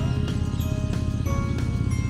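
Background music: held melodic notes over a fast, steady beat.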